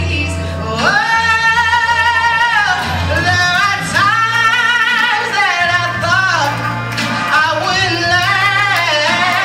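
A solo singer's voice through a microphone, holding long notes with vibrato and sliding through melodic runs over a low, steady accompaniment.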